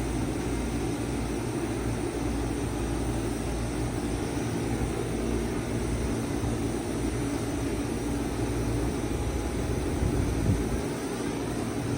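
A 1995 Bard 5-ton wall-hung heat pump running in cool mode: a steady low hum under an even rush of air.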